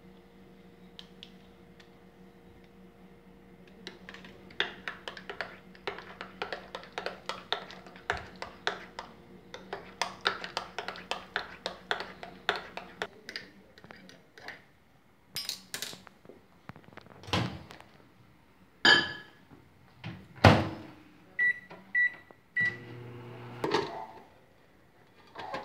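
A spoon stirring in a ceramic mug, clinking against the sides about four or five times a second for around ten seconds. This is followed by several louder knocks and clunks, three short high beeps and a brief hum.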